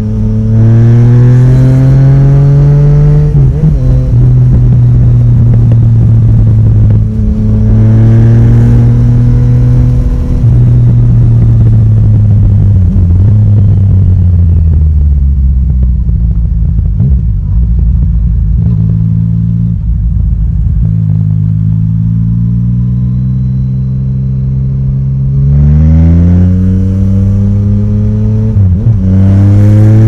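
Yamaha Tracer 900 GT's three-cylinder engine with an Akrapovic exhaust, recorded on the bike while riding, pulling through the gears. The revs climb and drop at an upshift about three seconds in, climb again to another shift around ten seconds, then fall away as the bike slows, before a last hard pull from about twenty-five seconds with one more shift near the end.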